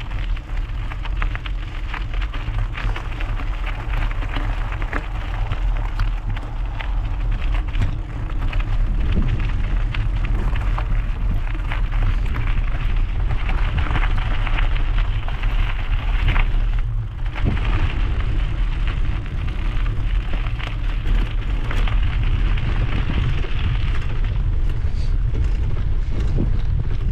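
Mountain bike tyres crunching steadily over loose gravel, with wind rumbling on the microphone.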